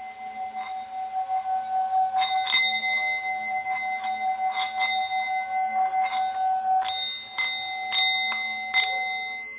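A singing bowl ringing with one steady tone that swells over the first couple of seconds and fades out near the end, with sharp metallic clinks about every half second to second.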